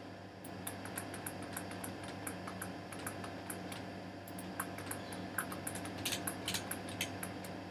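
Irregular clicking of a computer mouse and keyboard, many short clicks spread through and coming more thickly in the second half, over a faint steady hum.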